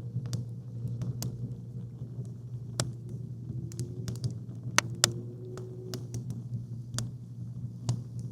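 Campfire wood crackling, with irregular sharp pops, the two loudest close together about five seconds in, over a steady low rumble.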